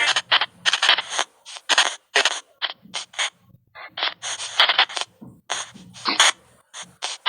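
Spain Paranormal White Noise Box app sweeping: rapid, choppy bursts of static and clipped sound fragments, several a second with short silent gaps between them.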